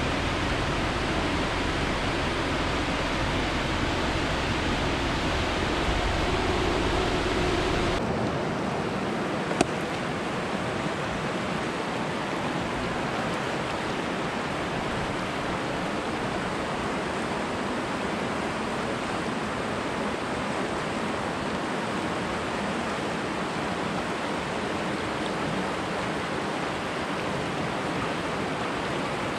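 Steady rushing of water. A deep rumble under it stops suddenly about eight seconds in, and a single sharp click comes shortly after.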